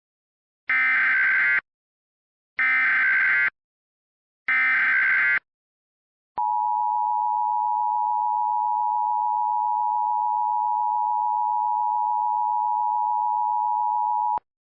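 Emergency Alert System alert opening: three screeching SAME digital header blasts, each about a second long, followed about a second later by the steady two-tone EAS attention signal, held for about eight seconds and cut off sharply near the end.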